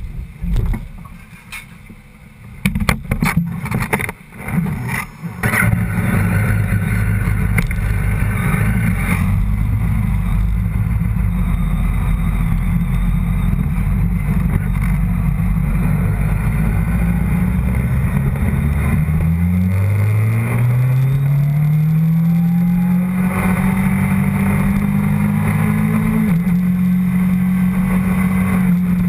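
A few knocks and clatters, then a sportbike's engine starts about five seconds in and runs loud and steady at low revs. From about two-thirds of the way through, the bike pulls away with the engine pitch climbing smoothly, and there is one gear change near the end.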